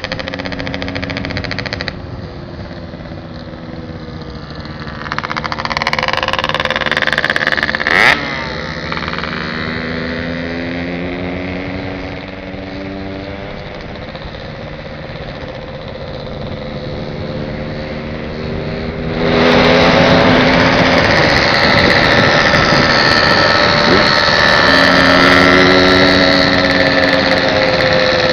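Motorcycle engine running while riding along a road, its pitch rising and falling with speed. There is a sharp click about eight seconds in, and about two-thirds of the way through a loud rushing noise comes in and stays.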